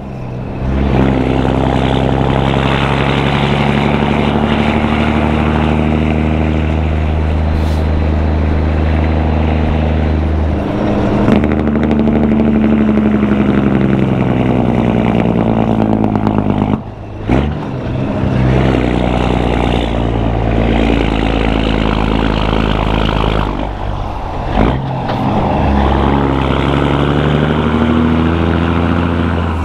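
Caterpillar 3406E inline-six diesel in a heavily loaded Peterbilt running through 6-inch stacks and an Aero Turbine 5050xl muffler, its steady exhaust note rising and falling in pitch. The engine note breaks off briefly twice in the second half.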